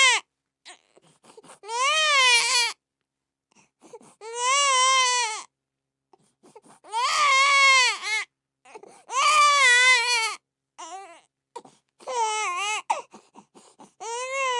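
Newborn baby crying in a run of separate wails, each about a second long with a pitch that rises and falls, broken by short catches of breath.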